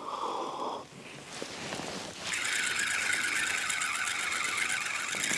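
Spinning reel on a feeder rod being wound in, a steady fast whirring that starts about two seconds in.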